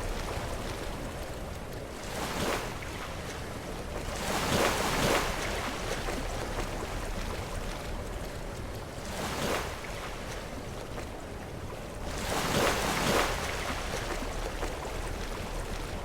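Sea waves crashing and washing against rocks in a steady surf, with four surges, the loudest about four seconds in and again near the end.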